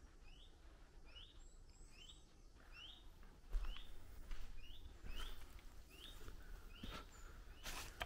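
A small bird outdoors repeating a short rising chirp about once a second. From about halfway in, irregular scuffs and knocks are heard over it, with a low rumble.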